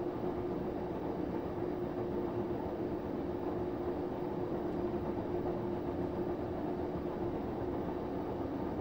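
Samsung WF9904RWE washing machine running its Eco Drum Clean cycle with an empty drum, the direct-drive drum spinning at speed: a steady hum with an even mid-pitched whine that holds unchanged.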